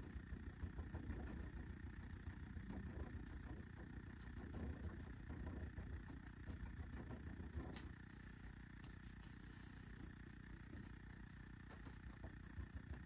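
Faint, steady low mechanical rumble, with a soft click about eight seconds in.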